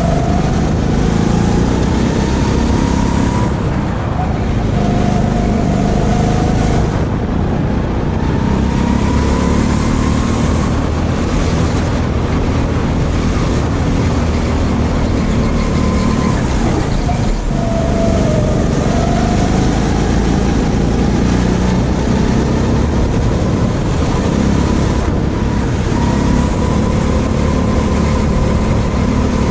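Onboard sound of a go-kart's engine under way, its pitch climbing as it speeds up and dropping again as it slows, over and over lap after lap.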